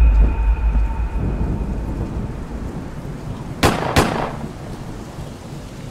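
Thunderstorm sound effect: a heavy, deep thunder rumble fading away over a rain-like hiss, with two sharp cracks close together about three and a half seconds in.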